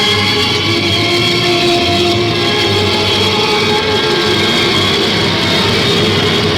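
Horror soundtrack for a haunted house: a dense, steady wall of music and effects, with long held droning tones over a rumbling noise bed.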